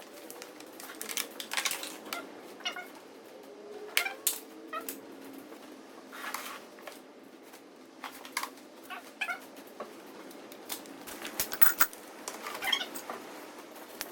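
Hand tools and mower parts being handled: irregular sharp clicks and knocks, with a few short squeaky sounds among them.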